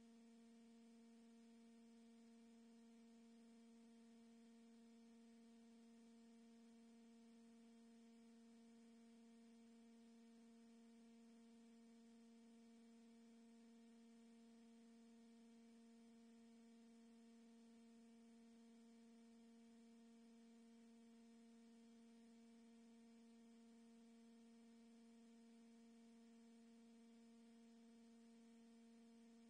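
Near silence with a faint, steady electrical hum: one low tone with a few higher overtones, unchanging throughout.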